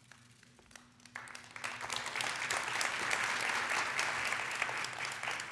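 Audience applauding: the clapping starts about a second in, swells, then thins out toward the end.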